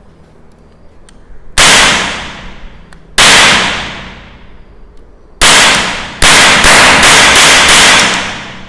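Toy cap-gun revolver firing an eight-shot ring of caps: sharp cracks, three spaced a second or two apart, then five in quick succession, each with a short ringing tail. The ring, torn in the middle, still fires cleanly.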